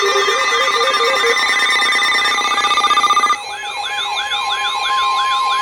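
Electronic alert sounds: a steady high warning tone, like a weather radio alarm, layered with rapid repeating siren-like sweeps, about three a second, and warbling alarm tones. About three and a half seconds in, the mix drops in level and changes to a new run of sweeps, with the steady tone returning.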